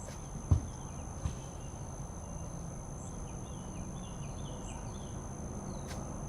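Two dull thumps about a second apart, a soccer ball being kicked, over a steady high drone of crickets and other insects. Short high chirps from a bird come in the middle.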